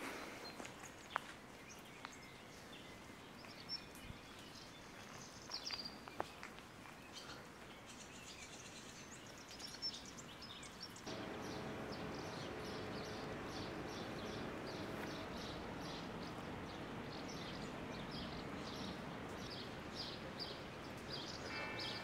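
Quiet outdoor ambience of a wet, rainy day. At first a few sharp ticks and scattered bird chirps sit over a faint hiss. About halfway through, a steadier, louder hiss of light rain comes in, with a bird repeating a quick high chirp over and over.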